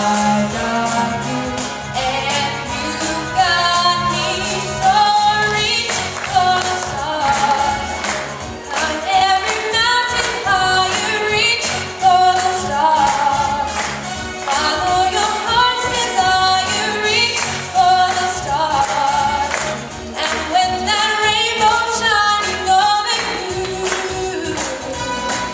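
A girl singing solo into a handheld microphone, a held, gliding melody over instrumental accompaniment with a steady beat.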